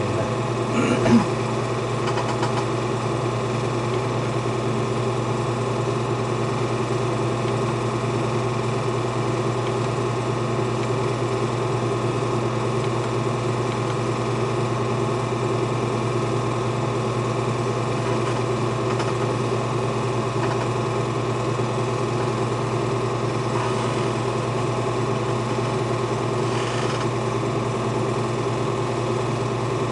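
Film projector running, a steady mechanical whir and hum that does not change.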